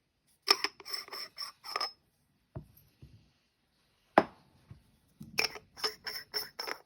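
Metal parts of hand coffee grinders being handled: two runs of quick, ringing metallic clicks and scrapes, with a single knock and a sharper clack between them.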